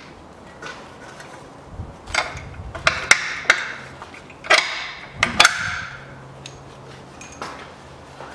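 Sharp metallic clinks and taps, about half a dozen with short ringing over the first six seconds, from steel bolts and hand tools being handled; a faint low hum runs underneath in the second half.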